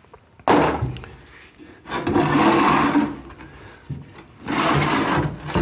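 Three bursts of mechanical noise, each about a second long, as the aluminium PowerGlide transmission case is worked with hand tools on a steel bench.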